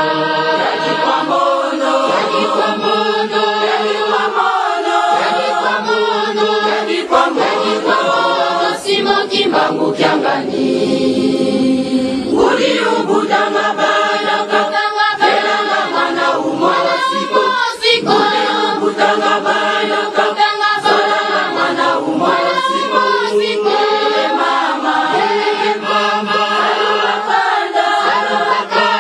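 A large women's choir singing together, many voices holding and moving between notes without a break.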